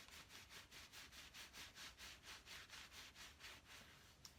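Near silence: room tone with a faint rustle pulsing about five times a second.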